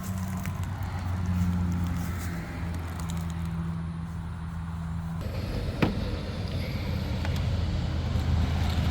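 A steady low hum, with a few sharp clicks of small rocks being handled and set in place, about six and seven seconds in.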